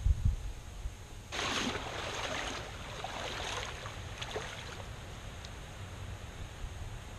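Water and gravel sloshing in a gold pan as it is rocked back and forth, in uneven surges from about a second in until nearly five seconds, after a few low knocks of handling at the start.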